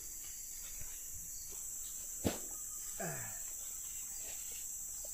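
Steady high-pitched drone of tropical insects, with one sharp click a little past two seconds in and a short vocal sound falling in pitch about three seconds in.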